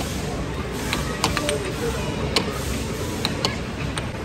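Air hockey puck clacking against plastic mallets and the table's rails: about half a dozen sharp clacks at uneven intervals over a steady background din.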